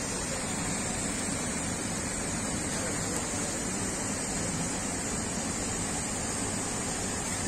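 Steady rush of water pouring out of a dam's sluice outlets, a constant even noise with no breaks.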